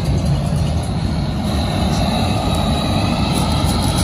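Steady low rumble of machinery running, with no distinct strikes or changes.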